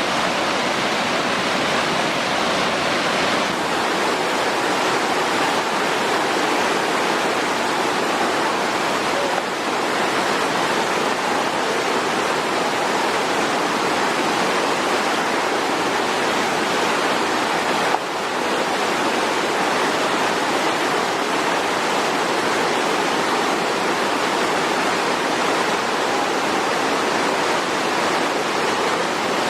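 Steady rushing of water from a river or waterfall, an even, loud rush with two brief dips partway through.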